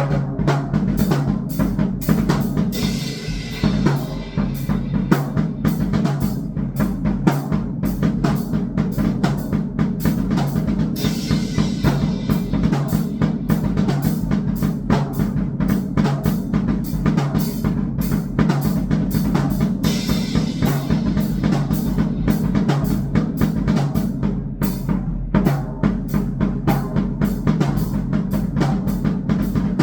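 Dense, fast drumming in an electronic noise piece: a rapid stream of bass-drum and snare-like hits over a steady low band, with hissing cymbal-like washes about 3, 11 and 20 seconds in.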